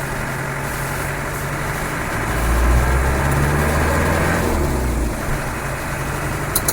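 Land Rover Defender 110's 300Tdi four-cylinder turbodiesel engine running while the vehicle is driven, heard from inside the cab. It gets louder for a couple of seconds in the middle, then eases off.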